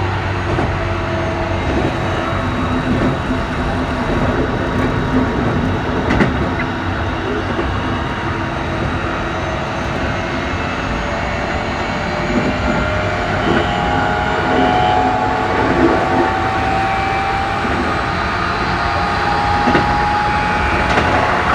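Keikyu New 1000 series train heard from inside a motor car: steady running noise and wheel-on-rail rumble, with the whine of the Toshiba IGBT-VVVF inverter and traction motors, which rises slowly in pitch over the second half.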